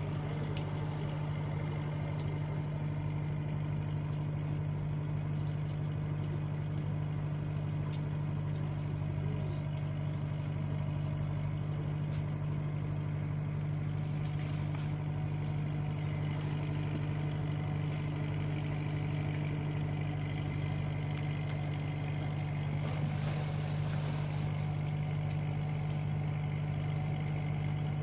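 Boat engine idling steadily, a constant low hum with no change in pitch.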